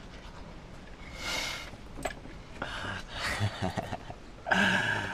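Soft, scattered breathy sounds, then a man laughing about four and a half seconds in.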